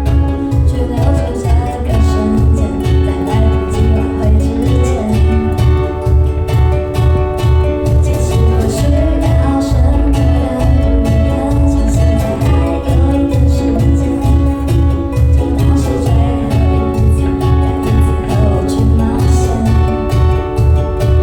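Live band of strummed ukuleles with a drum kit playing a pop song at a steady beat.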